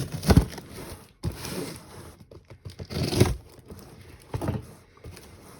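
Package being torn open by hand: packaging tearing and crinkling in several separate bursts.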